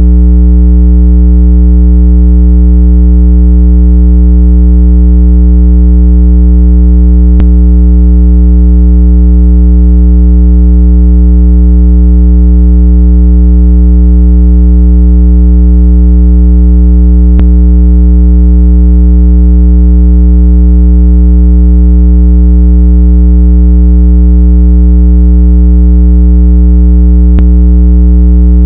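Steady, very loud, low buzzy electronic tone with many overtones, unchanging throughout: a speaker-cleaning tone meant to vibrate water and dust out of a phone speaker. A faint click sounds about every ten seconds.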